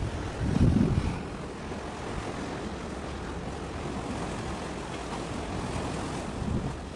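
Wind gusting on the microphone, a low buffeting rumble in the first second, then a steady rush of wind and sea.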